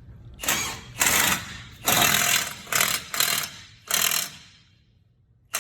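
Impact wrench hammering in about seven short bursts, running a fastener in on a truck's wheel hub before it is torqued.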